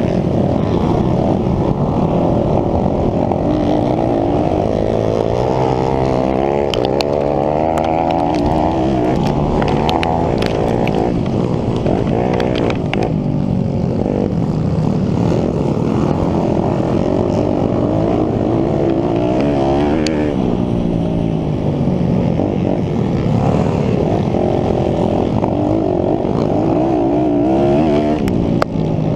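YCF SP3 150 cc pit bike engine at race pace, revving up and falling back again and again as the rider accelerates, shifts and backs off.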